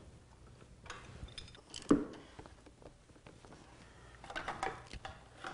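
Wrench and metal parts clinking and knocking on a motorcycle's front fork: scattered light clicks, one sharper knock about two seconds in, and a cluster of clinks near the end.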